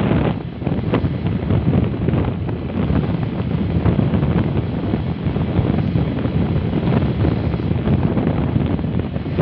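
Wind buffeting the microphone over the steady rumble of a vehicle moving along the road.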